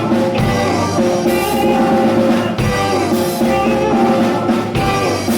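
A live beat band playing an instrumental stretch of a 1960s-style rock-and-roll song, with chords held over a drum kit and cymbal crashes twice.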